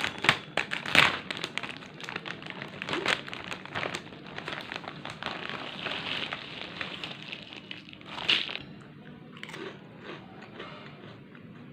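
Someone biting into and chewing crisp chips close to the microphone: a run of sharp crunches in the first few seconds, steady munching after, and one loud crunch about eight seconds in.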